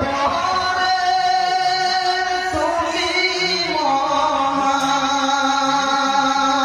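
A man singing a Bengali Islamic gojol (devotional song) into a microphone, drawing out long held notes.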